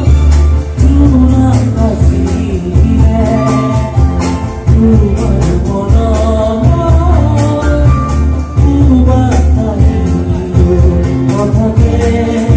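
Live music: a singer accompanied by an acoustic guitar, played loud with a heavy bass.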